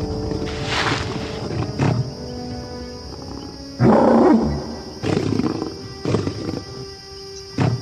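Allosaurus roaring again and again, about six calls with the loudest about four seconds in: a trapped animal stuck in swamp mud. Background music with sustained notes plays underneath.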